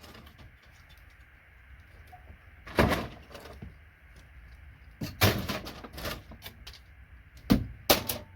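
Knocks and clatters of a circuit board and hand tools being handled while connectors are pried off: one clatter about three seconds in, a rattling spell around five seconds, and two sharp knocks near the end.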